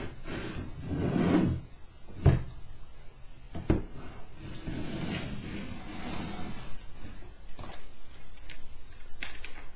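A clear acrylic 3D-printer frame with steel rods is handled and shifted on a wooden table. There is scraping at first, then a sharp knock about two seconds in and another just over a second later, followed by small clicks and rustling.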